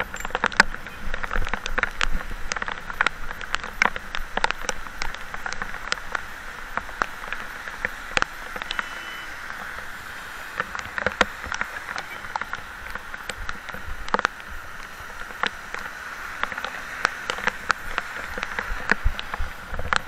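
Steady rain, with frequent sharp, irregular ticks of raindrops hitting hard surfaces.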